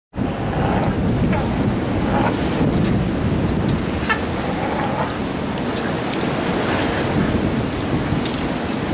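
Wind buffeting the camera's microphone: a steady low rumble, with a few faint short sounds over it.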